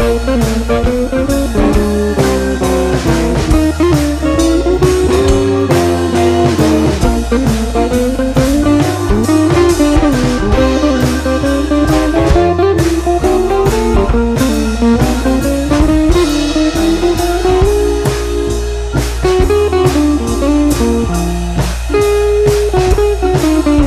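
Background music: a blues-style guitar tune over a steady drum beat.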